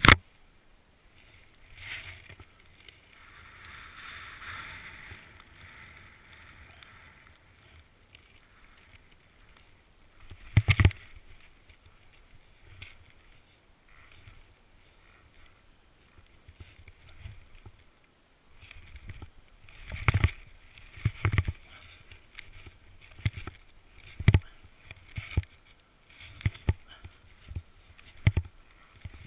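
Snowboard carving through deep powder snow: a soft hiss of board and spray, broken by sharp knocks and thumps, one near the middle and a run of them in the last third.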